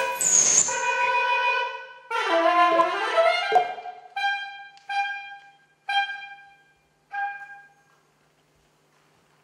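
Soprano saxophone playing free improvisation: sustained tones rich in overtones, then a bending, wavering pitch, then four short notes on the same pitch, each fading, which die away near the end.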